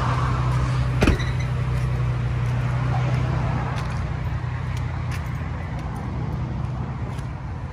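Truck engine idling with a steady low hum that fades slightly toward the end, and one sharp knock about a second in.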